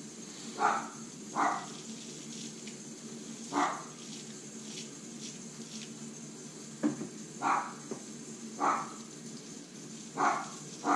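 A dog barking in single barks at uneven gaps, six in all, a second or more apart.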